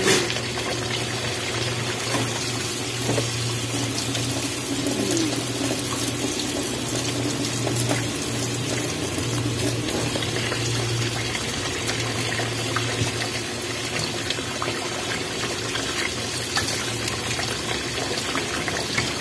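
Pork pieces frying in oil with onion and garlic in a nonstick pan, a steady sizzle with scattered small crackles over a low steady hum. There is a short knock as the meat goes into the pan at the start.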